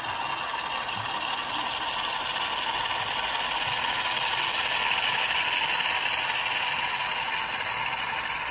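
OO gauge model train coaches rolling past on the track, a steady clattering rush of small wheels on rails that grows louder past the middle and then eases slightly.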